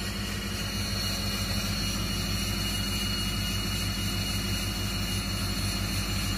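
LET 410 UVP-E's left turboprop engine being dry-motored, spun by its starter without ignition. It gives a steady whine over a low, evenly pulsing drone, heard from inside the cockpit.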